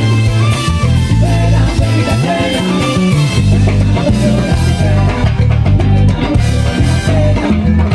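Live salsa band playing loudly, with a heavy bass line, guitar and drums driving a steady beat, and little or no singing.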